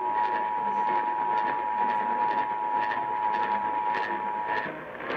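EAS attention signal, the two-tone alert (853 and 960 Hz sounded together), heard over the radio with crackle and hiss underneath. It cuts off about four and a half seconds in, ahead of the spoken test message.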